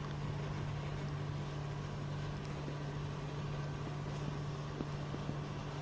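Steady low mechanical hum with an even hiss over it, unchanging throughout, with a couple of faint ticks near the end.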